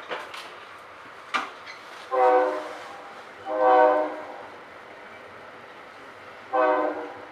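A commuter train's horn sounds three blasts, each a chord of several tones, the second a little longer and the third shorter, over the steady running noise of the train. A couple of sharp knocks come in the first second and a half.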